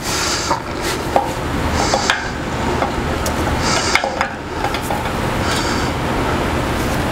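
Scattered light metallic clinks and knocks from a lifting chain and an engine hoist as a heavy air compressor is lowered and steadied on the hoist, over a steady low hum.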